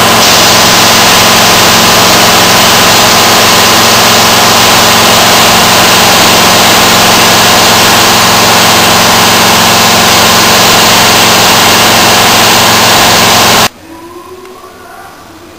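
Compressed-air paint spray guns hissing loudly and steadily while spraying, over a steady low hum. The hiss cuts off suddenly near the end, leaving only a faint background.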